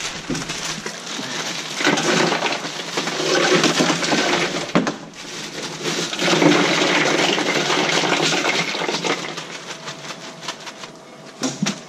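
Bagged ice being poured into a plastic cooler: a dense rattle of ice cubes tumbling in, mixed with the crinkle of the plastic bags, in uneven bursts with a short break about five seconds in.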